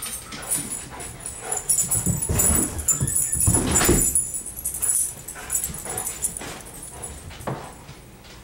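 Greyhounds at play: paws thudding and scuffling on carpet as a dog carries a toy past, loudest in the middle, with some dog noises mixed in.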